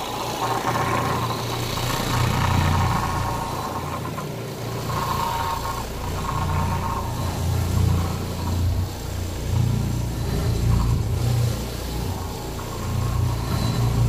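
Carpet-cleaning machine running on stair carpet: a steady low motor hum that swells and fades every few seconds, with some rattle.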